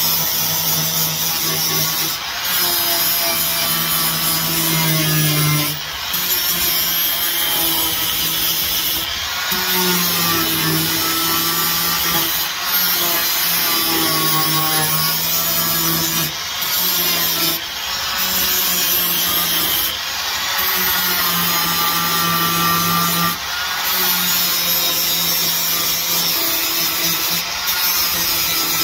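Angle grinder grinding down weld seams on a car's steel floor pan: a continuous loud grinding whir of the disc on metal, its pitch shifting with the pressure and dipping briefly every few seconds.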